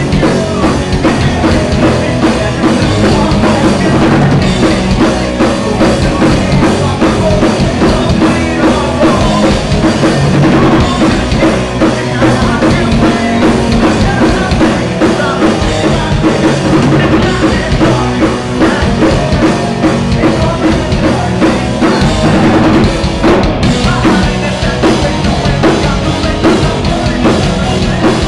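Live rock band playing loud, with a pounding drum kit and electric guitars, continuous without a break.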